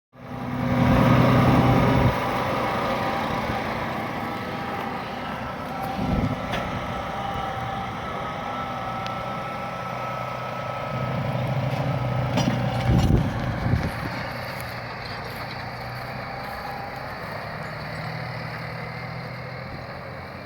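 Large farm tractor diesel engine running under load while ploughing, a steady hum that is loudest in the first two seconds and swells again briefly a little past the middle.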